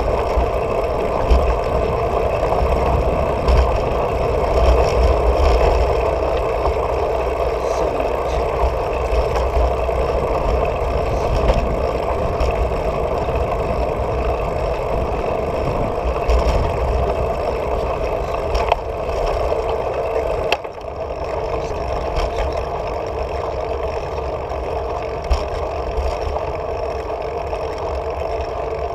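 Steady wind rumble and tyre-on-asphalt noise picked up by a camera mounted on a moving bicycle's handlebars, with scattered short rattles as the bike goes over bumps. The low rumble drops suddenly about two-thirds of the way through.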